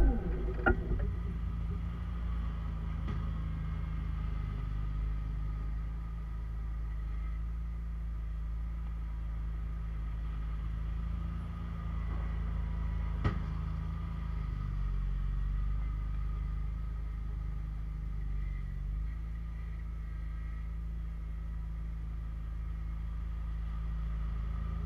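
Bolens garden tractor's engine idling steadily as a low hum, with a single sharp click about halfway through.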